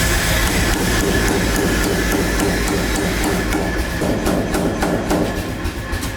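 Steel being struck repeatedly with a hammer, as in hand forging on an anvil.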